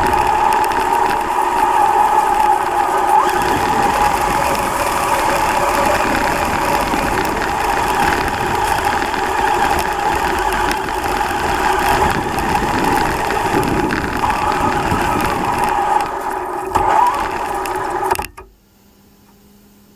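Traxxas Slash RC car's brushless electric motor and geared drivetrain whining at a fairly steady pitch as the car drives, over a rushing noise, heard from a camera riding on the car. The sound cuts off suddenly near the end, leaving faint hiss.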